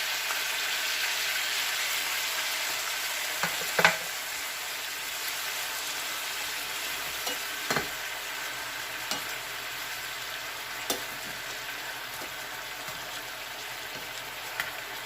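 Chicken thighs sizzling in a frying pan in rendered chicken fat with marinade sauce just poured in, a steady hiss that slowly eases off. A few sharp knocks, about four, break through it.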